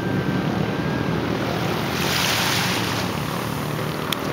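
Small sea waves lapping in shallow water at the shore, with wind rumbling on the microphone; a louder wash of water about two seconds in.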